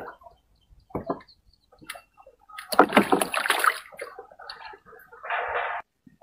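Water splashing and sloshing in irregular bursts, the biggest splash about three seconds in and a shorter one near the end.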